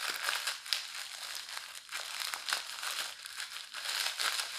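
Small plastic packaging pouch being crinkled and twisted open by hand: a continuous, irregular crackling rustle of plastic.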